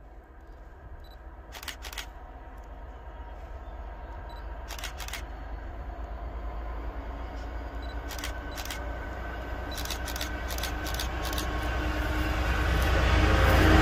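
A convoy of Freightliner diesel locomotives approaching, their engines a steady hum that grows louder throughout and is loudest at the end. Small clusters of sharp clicks come several times along the way.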